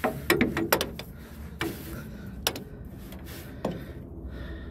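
Scattered sharp metal clicks and taps, about half a dozen at irregular intervals, from a bolt and hands knocking against a Pontiac 350's fuel pump and block while the pump's mounting bolts are being started.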